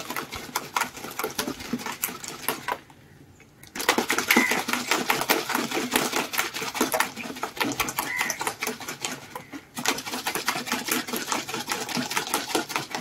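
Ice cubes rattling hard inside a bottle of milky drink as it is shaken vigorously to mix a kulukki (shaken) drink: a fast, dense clatter that stops briefly about three seconds in and again near ten seconds.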